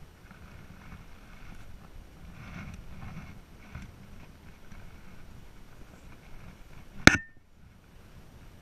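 Soft rustling of clothing and gear, then a single sharp, very loud crack about seven seconds in.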